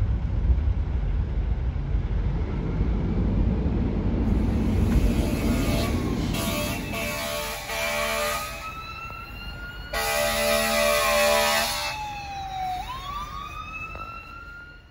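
Fire engine responding with an emergency siren: a low engine rumble first, then the siren sweeping up and down. Two long air-horn blasts sound in the middle, a few seconds apart. The siren winds up again near the end and dies away.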